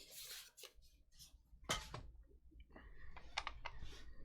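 Faint handling of trading cards and their packaging: soft rustles and taps, with one sharper click about a second and a half in.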